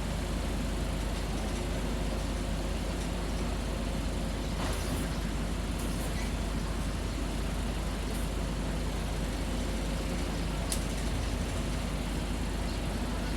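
Steady low machine hum with a constant drone, and a few faint clicks.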